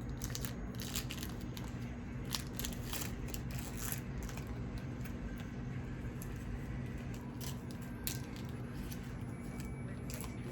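Trading cards being handled and flipped through: faint irregular clicks and crackles of card stock and wrapper, over a steady low hum.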